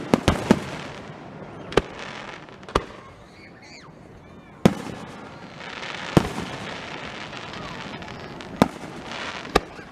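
Aerial fireworks bursting across the lake: about nine sharp booms at uneven intervals, some followed by crackling.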